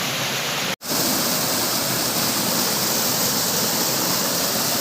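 Steady rushing of a waterfall, with a momentary gap just under a second in, after which it comes back slightly louder.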